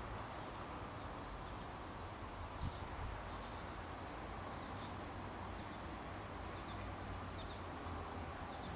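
Quiet outdoor ambience: a steady low hum and background hiss, with faint, short high chirps about once a second.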